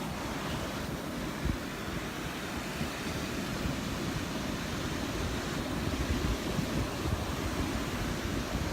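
Rough Gulf surf breaking on the shore as a steady wash of waves, with wind buffeting the microphone.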